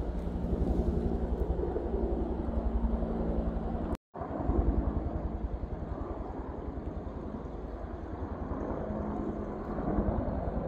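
Helicopter overhead, its main rotor beating in a rapid, steady pulse. The sound drops out briefly about four seconds in.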